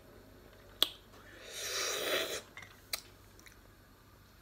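A person eating sour tamarind: a small mouth click about a second in, then a breathy hiss of under a second, and another click near three seconds.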